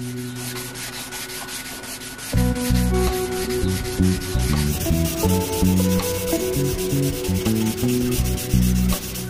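Sandpaper rubbed by hand over a small piece of wood in quick back-and-forth strokes. Background music comes in about two seconds in.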